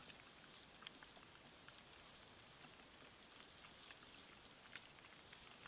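Near silence with faint scattered ticks of wet snow pattering down.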